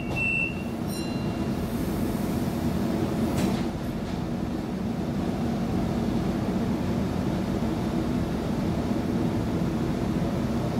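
Electric suburban train pulling out of a station, heard from inside the carriage: a couple of short high beeps in the first second, then a steady low running rumble as it moves off, with a brief knock a few seconds in.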